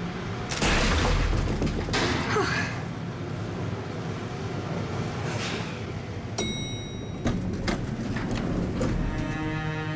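Film soundtrack effects: several sudden whooshes, the first with a deep rumble, a short bright chime about six seconds in, a few sharp knocks, then soft music starting near the end.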